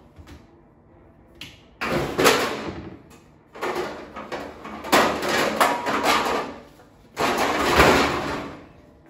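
Metal baking pans clattering and scraping against each other as they are dug out of the drawer under an oven, in four loud bursts with a brief metallic ring in the middle.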